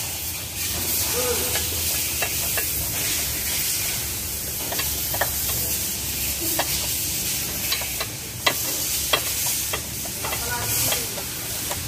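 Socket wrench with an extension working the 12 mm bolts of a stabilizer-bar bushing bracket: scattered sharp metal clicks and clinks over a steady hiss.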